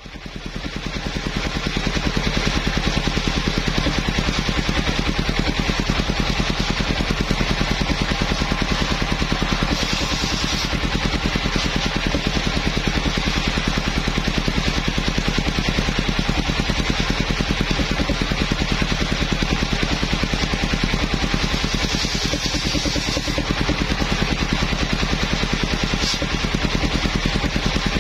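Engine of a mobile circular sawmill running steadily with a fast even pulse, rising in over the first couple of seconds.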